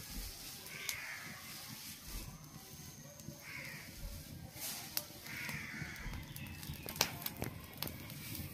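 Crows cawing repeatedly, a short call every couple of seconds, with a few sharp clicks about five and seven seconds in.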